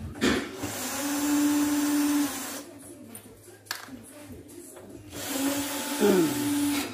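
Electric screwdriver running in two bursts of about two seconds each, backing out screws from an amplifier's case.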